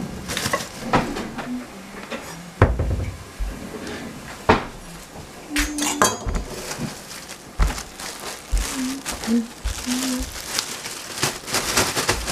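Kitchen clatter of a knife and dishes knocking on a tiled counter, with scattered sharp knocks and a stretch of rustling in the second half as cabbage is handled.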